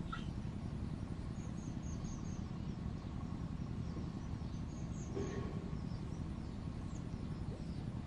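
Outdoor ambience: a steady low rumble with a faint hum, and a few faint high bird chirps now and then.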